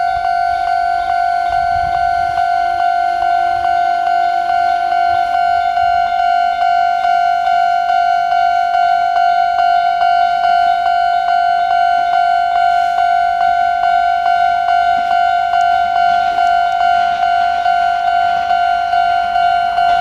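Japanese level-crossing warning bell ringing steadily, a single bright tone repeated in rapid, even strokes. Near the end the rumble of a JR KiHa 110 diesel railcar approaching the crossing rises under it.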